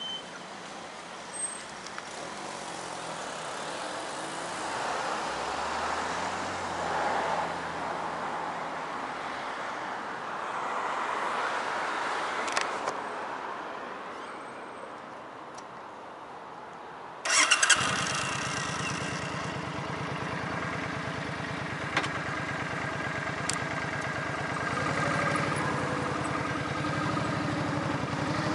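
An engine starts with a sudden loud burst about 17 seconds in, then keeps running with a steady rapid pulse. Before that there is a rushing noise that swells and fades.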